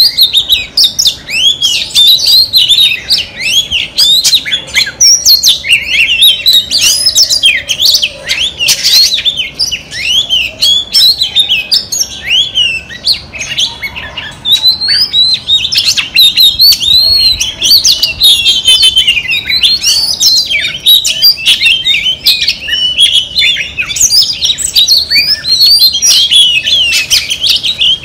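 Female Oriental magpie-robin singing a loud, rapid, unbroken stream of varied slurred whistles and chirps. This is the kind of female song that keepers use to stir a male magpie-robin into singing.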